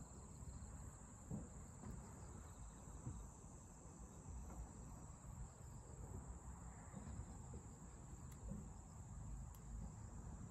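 Crickets and other grass insects chirring: a faint, steady, high-pitched buzz with a soft low rumble underneath.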